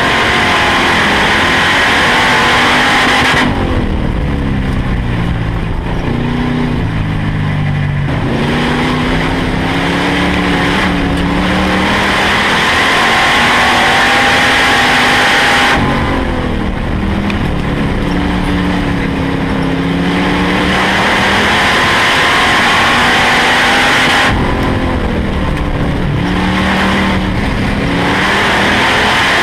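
Dirt-track stock car's engine heard from inside the cockpit, running hard. Its pitch drops as the driver lifts for the turns about 3.5, 16 and 24 seconds in, then climbs again as he gets back on the throttle down the straights.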